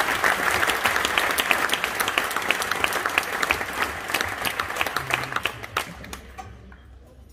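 An audience applauding, a dense patter of many hands clapping that dies away about six seconds in.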